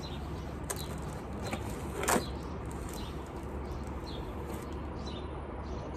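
Steady outdoor background noise, with light handling sounds: a few short rustles and knocks from a cardboard box and plastic packaging being handled, the loudest about two seconds in.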